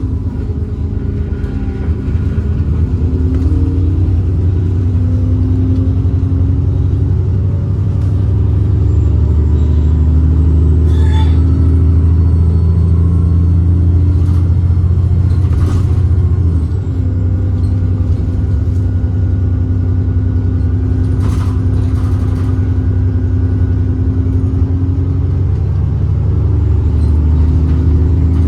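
ADL Enviro 400 double-decker bus's diesel engine running under load, its pitch steadily holding then stepping as it moves through the gears, with a brief easing off partway through. A faint high turbo whistle rides over it for several seconds, with occasional short rattles.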